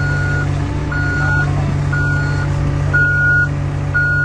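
Excavator's backup alarm beeping steadily about once a second, one high tone each time, over the machine's engine running with a low steady hum as it holds a burial vault on straps.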